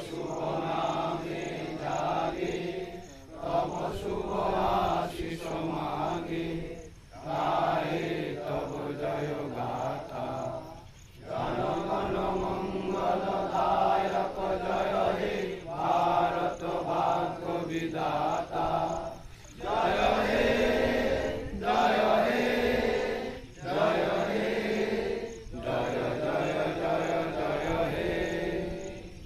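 A group of men singing together in unison: long sung phrases broken by brief pauses for breath.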